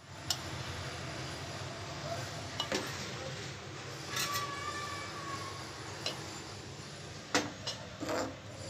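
A steel spoon clinking and scraping against a steel pot and plate as cooked rice is served: a handful of short metallic clinks, one of them ringing briefly, over a steady low background hum.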